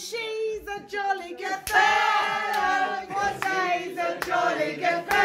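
Several voices singing along together, with sharp claps or knocks breaking in now and then.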